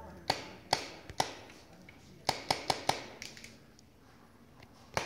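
Paintball markers firing sharp pops: three shots about half a second apart, then a quick string of four a little after two seconds in, and one more near the end.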